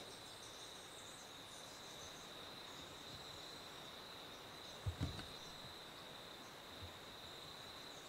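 Faint, steady high-pitched insect drone, with a couple of soft low thumps about five seconds in.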